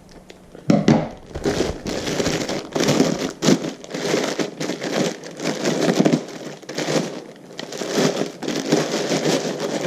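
Plastic packaging crinkling and crackling in a dense, irregular run as it is cut open with scissors and pulled off a new cordless drill.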